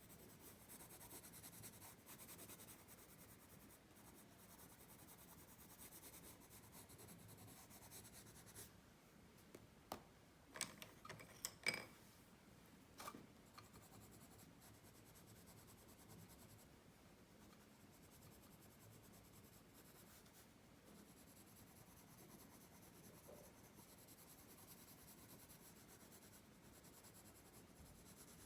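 Faint scratching of a pencil shading on paper, with a brief cluster of small sharp clicks about ten to thirteen seconds in.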